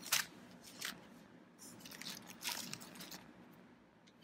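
Small handling noises on a work towel: a sharp click at the start, a faint tick, then two short soft rustles about two and three seconds in.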